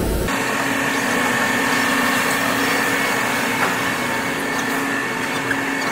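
Steady machinery noise of a plastics blow-molding workshop: an even hiss with a low hum and a higher steady whine under it, coming in abruptly just after the start.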